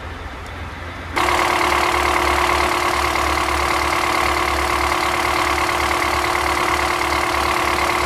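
Crane's diesel engine running steadily close by: a low, even throb with a steady whine over it. The sound jumps louder about a second in.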